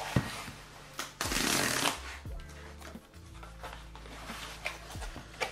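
A cardboard book mailer being torn open by its perforated zip strip: a loud tearing rasp lasting under a second, about a second in, with knocks and rustles of the cardboard being handled around it. Quiet background music plays underneath.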